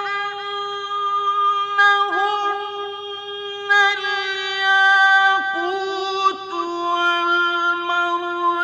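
A man's voice chanting Quran recitation in the ornamented, drawn-out mujawwad style. He holds long melodic notes at a high, steady pitch, with a few short breaks and small steps down in pitch along the way.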